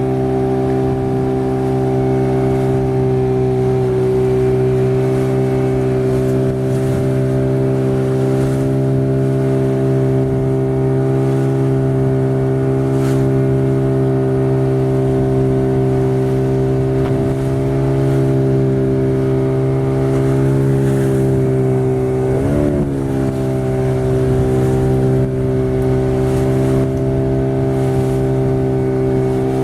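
A boat's engine running at a steady speed with an even drone, its pitch wavering briefly about three quarters of the way through.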